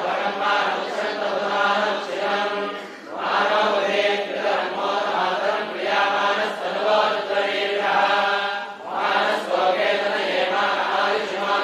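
Sanskrit Vedic mantras chanted in a steady recitation, with short breaks about three and nine seconds in.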